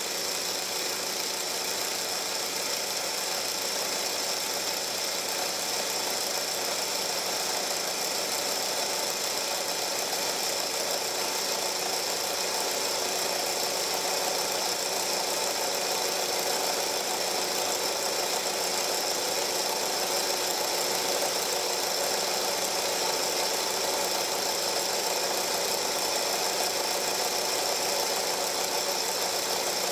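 Film projector running with a steady, unchanging mechanical hum.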